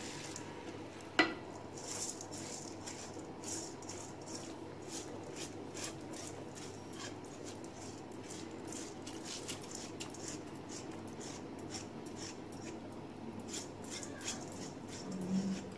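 Soaked basmati rice being tipped and scraped by hand out of a stainless steel colander into a pot of liquid: light scattered ticks and patters of grain and metal. There is one sharp clink about a second in, over a steady low hum.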